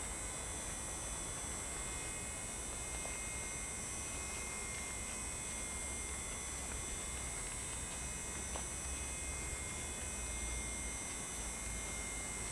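A steady hum and hiss with several faint, constant high-pitched whines and a low rumble beneath; nothing starts or stops.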